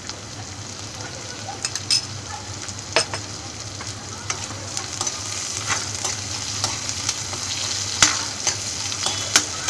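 Sliced onion, capsicum and carrot sizzling in hot mustard oil in a metal kadhai. The sizzle grows stronger from about halfway, and a metal spoon knocks and scrapes against the pan a handful of times, loudest near the end.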